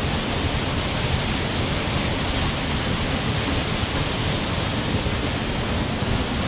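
Waterfall of about 20 feet crashing into its pool close by, a loud, steady rush of water.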